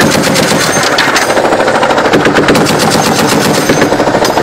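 Machine gun firing a long, unbroken run of rapid automatic fire.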